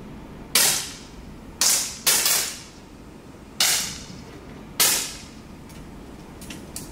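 10m air pistols firing: about five sharp shots from several pistols, unevenly spaced over about four seconds, each trailing off in a short echo in the range hall. A few faint clicks follow near the end.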